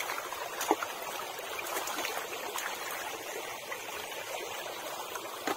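Shallow stream water trickling steadily while hands splash and feel through it for snails. There are a few sharp splashes in the first second and another near the end.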